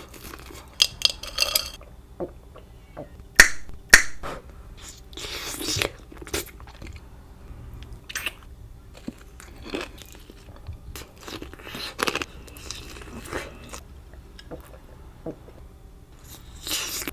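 Close-miked eating: crunchy bites into fried chicken tenders and wet chewing. Two sharp crunches about three and a half and four seconds in are the loudest, with scattered shorter crunches through the rest.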